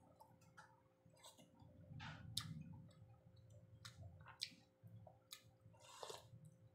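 Faint close-up eating sounds of someone eating fish soup: chewing and mouth noises, with scattered light clicks of a fork and spoon against the bowl.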